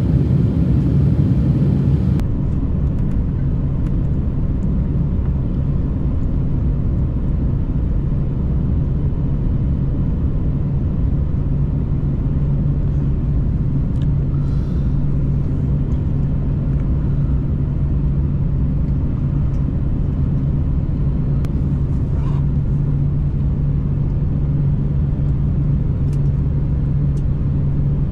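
Airbus A330-300 airliner heard from inside the cabin on final approach: steady jet engine and airflow noise with a continuous low drone.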